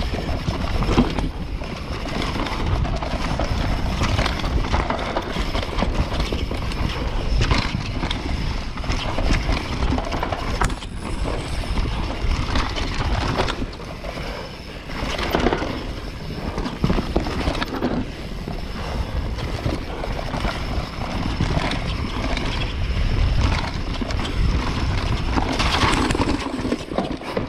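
Enduro mountain bike clattering at speed down a forest trail: tyres on dirt and roots with a constant run of knocks and rattles from the bike, over a heavy low rumble.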